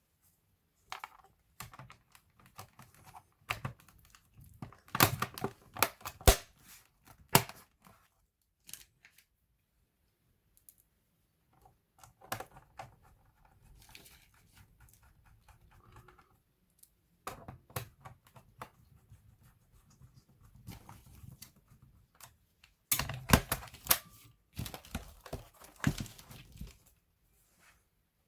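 Handling noise: clusters of sharp clicks, taps and rustling, in four bursts with short quiet gaps between, the loudest about five seconds in and again near the end.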